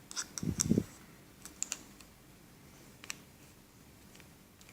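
Small, sharp plastic clicks and taps as the scissors of a Victorinox SwissCard are handled and slotted back into the plastic card: a cluster in the first second, then a few single clicks.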